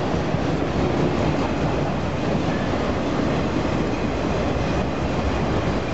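Steady rumble and rattle of a long freight train's enclosed autorack cars rolling past, their steel wheels running on the rails.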